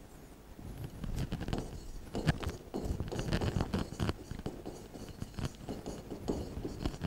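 Pen stylus scratching and tapping on an interactive touchscreen board while writing, in short, irregular strokes.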